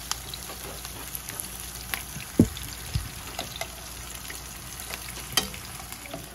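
Salmon fillets frying in a pan, a steady sizzle with scattered light pops. Two louder knocks come about two and a half and three seconds in, and a sharp click comes near the end.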